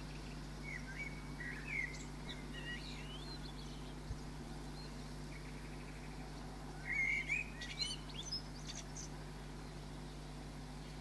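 A small songbird singing in two short, quick, warbling phrases of chirps and gliding whistles, the second a few seconds after the first, over a steady low hum.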